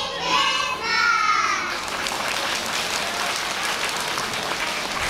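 A group of young children singing the last line of a song together, ending a little under two seconds in, followed by steady audience applause.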